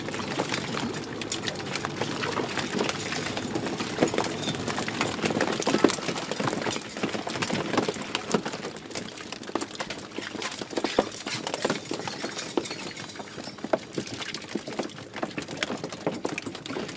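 Freshly caught small fish flapping in a plastic-bag-lined crate on a boat deck: a steady, irregular patter of quick taps and slaps.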